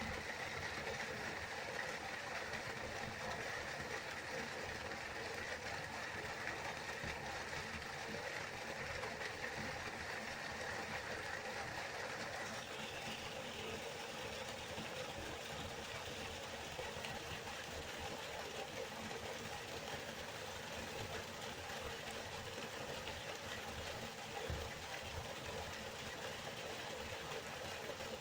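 River water flowing steadily in a continuous rush; its character shifts slightly about halfway through.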